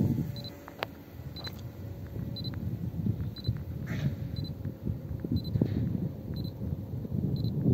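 A short, high electronic beep repeating about once a second, over a low rumble of wind on the microphone.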